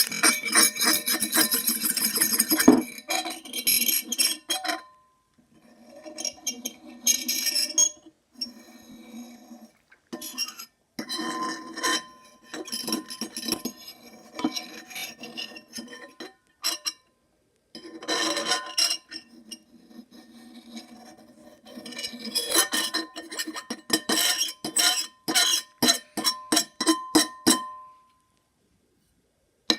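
Hard objects clinking together again and again, each clink leaving a short ringing tone. The clinks come in bursts of quick strikes separated by short pauses, and stop about two seconds before the end.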